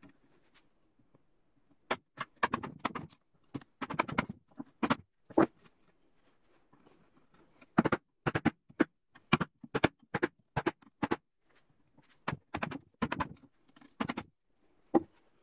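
Mallet striking a 1-inch chisel, chopping waste out of a half-lap in a pine board: a run of sharp knocks in uneven clusters, with a pause of about two seconds midway.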